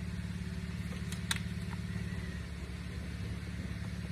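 Steady low machine hum, with a light click about a second in.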